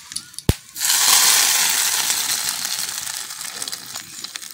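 Tempering of mustard seeds, dry red chillies and curry leaves in hot oil in a frying pan: a sharp click, then a loud sizzle breaks out about a second in and slowly dies down.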